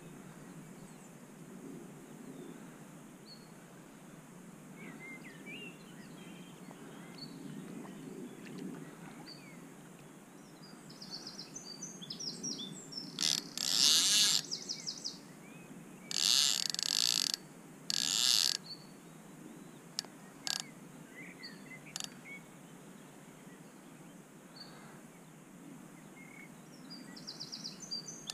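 Wild birds chirping and singing, with a few loud bursts of sound a little past halfway, over a steady low background rush.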